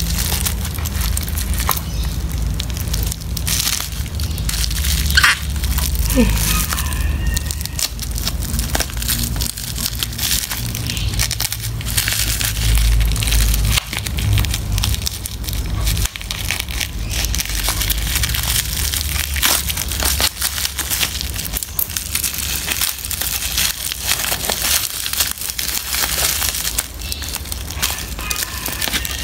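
Bubble wrap crinkling and crackling as it is handled and picked at, a dense run of fine plastic crackles. A low handling rumble underneath stops about halfway.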